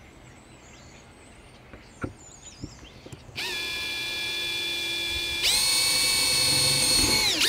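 Cordless drill drilling a pilot hole through a solar-panel Z-bracket into the RV roof. After a few light clicks, the motor's whine starts about three seconds in, jumps higher and louder about two seconds later, and begins to wind down at the end.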